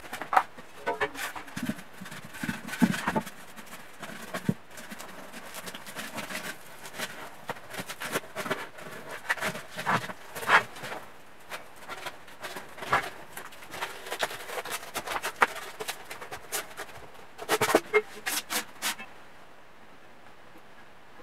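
Irregular rubbing, scraping and knocking as styrofoam pieces are handled and pressed into a metal can, with a few sharper clicks; the handling stops about two seconds before the end.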